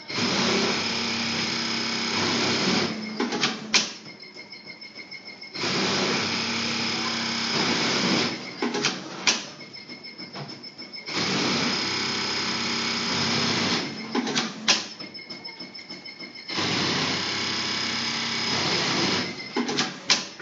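Industrial pattern sewing machine running through four stitching cycles of about three seconds each. Quieter pauses come between the cycles, each with a sharp click.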